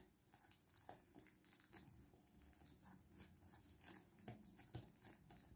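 Faint paper rustling and soft taps as a child's fingers press and smooth the pages of a thin paper booklet, in short scattered bits at a very low level.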